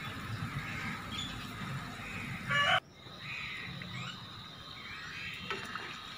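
Namak pare dough pieces deep-frying in hot ghee in a wok, a steady sizzle and bubbling. A short high-pitched sound comes a little before the middle, then the sound cuts off suddenly and the sizzle resumes.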